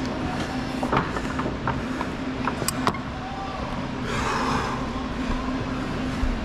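Sharp metallic clicks of a climbing rope being clipped into a quickdraw's carabiner, several in quick succession, then a short hiss about four seconds in, over a steady low hum.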